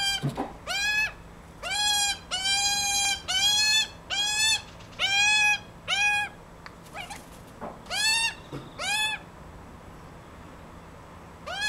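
A baby magpie's begging calls: a quick run of about a dozen short, clear, pitched calls, each rising at its start, then two more about eight seconds in and one near the end. These are the food-begging calls of a fledgling that would rather be fed by its parents.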